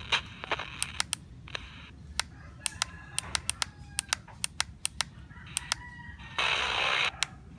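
Happy CS-106 portable radio being tuned across the band: a rapid, irregular run of sharp clicks as the frequency steps, with short bursts of static hiss in between and a louder burst of static about six and a half seconds in.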